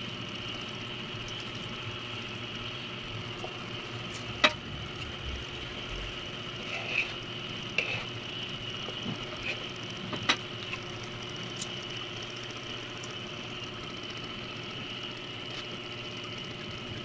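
A spoon stirring thick ube champorado (purple rice porridge) in a large metal pot, with a few sharp clinks of the spoon against the pot, the loudest about four seconds in. A steady hum runs underneath.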